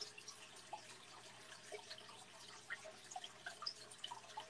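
Faint water trickling and dripping from fish tanks, with small irregular plinks over a low steady hum.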